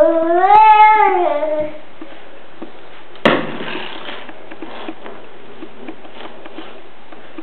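A child's voice holds one long drawn-out 'ooh' that rises and then falls in pitch for about a second and a half. A little after three seconds in comes a single sharp knock, then only a steady low hiss.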